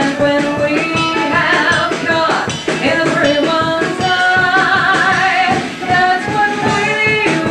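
Live stage-show band music for a dance number, with a drum kit keeping the beat under a moving melody.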